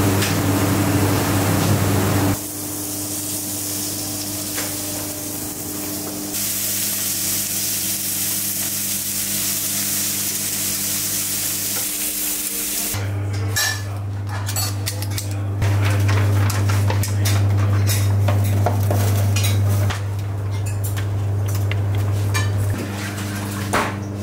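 Hands squishing and kneading a minced-meat mixture, then meat patties and skewers sizzling on a grill, with many sharp crackles and pops through the second half. A steady low hum runs underneath.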